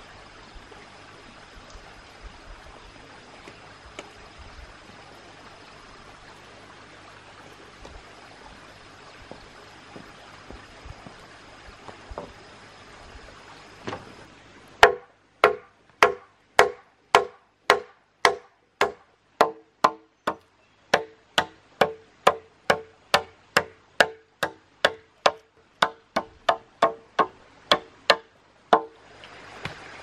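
A steady hiss of outdoor ambience, then from about halfway a knife chopping into a wooden log: a regular run of sharp strikes, about two a second, each with a short ringing knock, separated by near silence.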